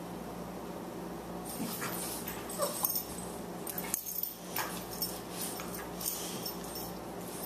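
A boxer puppy and an adult boxer dog play-fighting: scuffling and mouthing, with a few short whimpers, starting about a second and a half in.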